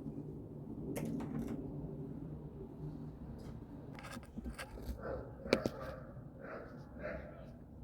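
Small plastic parts of a brake booster vacuum line connector being handled, with scraping and several sharp clicks, the sharpest about five and a half seconds in.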